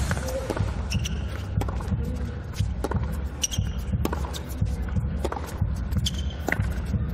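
Tennis rally on an indoor hard court: sharp racket strikes on the ball and ball bounces at irregular intervals of roughly half a second to a second, with a few short high squeaks. A steady low rumble runs underneath.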